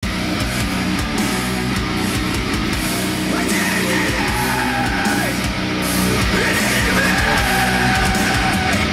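Heavy rock music with electric guitar, loud and steady.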